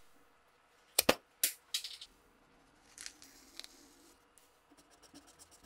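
A few sharp clicks and taps from handling a marker and the steel axe head, the loudest about a second in. Near the end comes the fine, quick scratching of a marker tip drawing a line on the axe head's steel.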